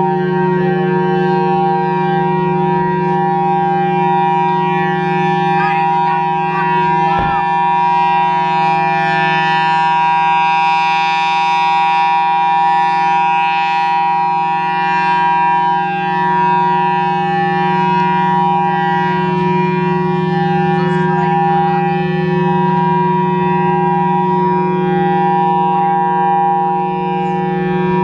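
Federal Signal Thunderbolt 1003A supercharged rotating outdoor warning siren sounding its steady alert tone, with its blower running. The pitch holds constant while the loudness swells and dips slightly as the horn rotates.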